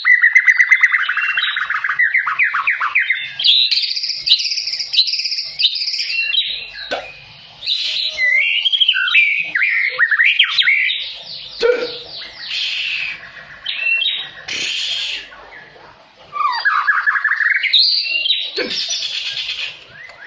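White-rumped shama (murai batu) singing in full voice: a long, varied song of rapid rolling trills, sweeping notes and sharp repeated 'shooting' notes, with a short pause about three-quarters of the way through. This is the vigorous fighting song these birds give when provoked by a rival.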